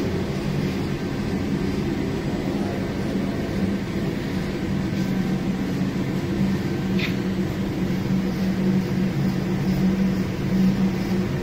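A 120 kg drum coffee roaster running, with a steady hum from its motors and fans.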